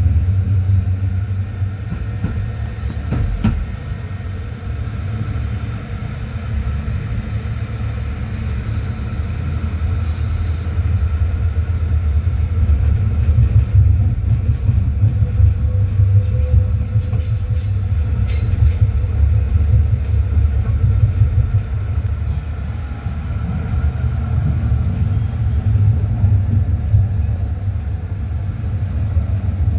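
Tram running along its line, a steady low rumble of wheels and running gear that grows stronger over the first dozen seconds, with a few brief clicks.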